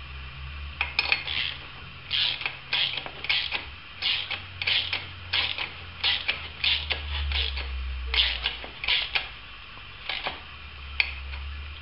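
Socket ratchet clicking in short runs, roughly two a second, as a bolt is wound into a stripped thread repaired with a Heli-Coil insert. A steady low hum runs underneath.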